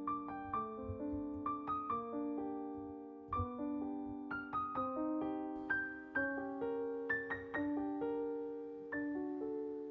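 Background piano music: a gentle melody of single struck notes, each ringing and fading, a few a second.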